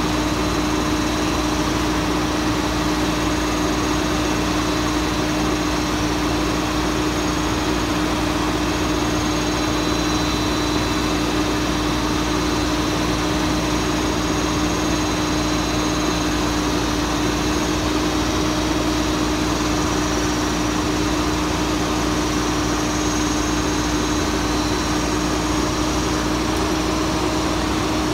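Diesel engine of a Mack Granite crane truck idling steadily, with a constant droning tone and no changes in speed.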